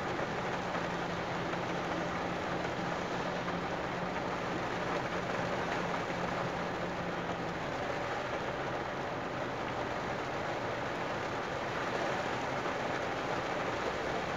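Heavy downpour falling on a moving car, with tyres hissing on the flooded road: a steady, unbroken rush of noise. A faint low hum runs underneath during the first half.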